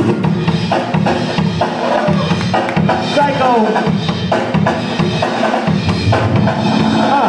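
Loud breakbeat music with a steady drum beat, about two beats a second.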